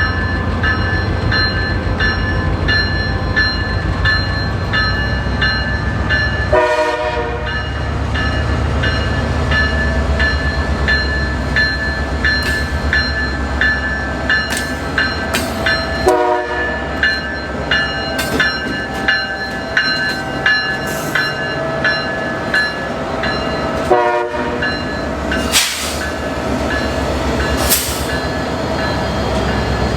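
Freight train led by EMD diesel-electric locomotives passing, with a deep, steady engine rumble and a ringing tone held over it. From about twelve seconds in, a run of rapid clicks comes from the wheels over the rail joints.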